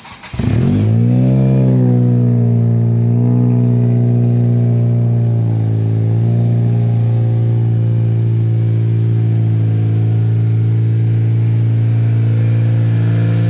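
Car engine starting up: it catches with a quick rise in pitch, wavers up and down a little a couple of times, then settles into a steady idle.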